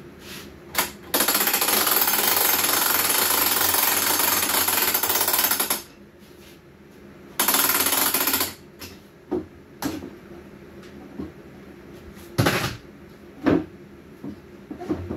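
A handheld power tool runs loudly in two bursts, about four and a half seconds and then about one second, as the roof of a wooden birdhouse is put back together. A few short knocks of parts being handled follow.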